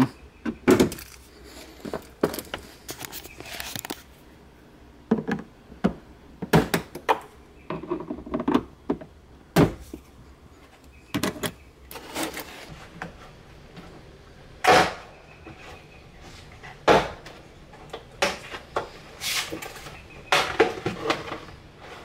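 Plastic push clips being pried out of a car's trunk trim and carpeted liner with a flathead screwdriver, and the plastic trim piece being handled and pulled free: irregular clicks, snaps and knocks with short scraping rustles between them.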